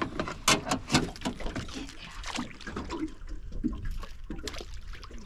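Water dripping and splashing from a crab net tipped out over the side of a small boat, with a quick run of light knocks and clicks in the first couple of seconds, then a quieter wash of water.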